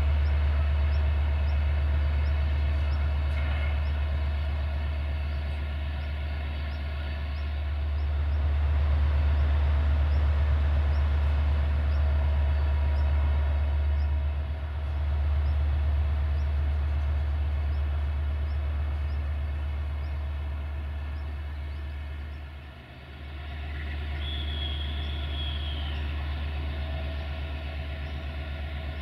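Diesel locomotive engine running with a steady low rumble. A brief high tone sounds near the end.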